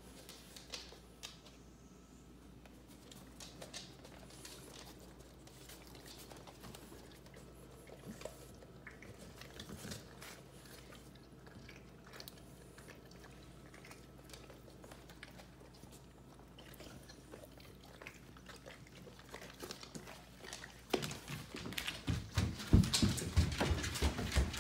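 Quiet room with scattered small clicks and taps. About 21 seconds in, loud irregular clattering of running steps on a hard floor begins and keeps going.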